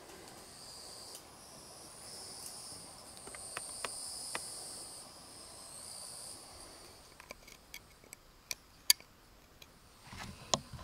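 Insects trilling in a high-pitched, pulsing chorus. It fades about seven seconds in, followed by a scattering of sharp clicks, the loudest about nine seconds in.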